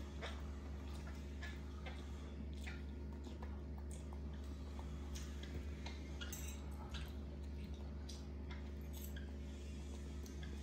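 Faint, irregular small clicks and light taps over a steady low hum.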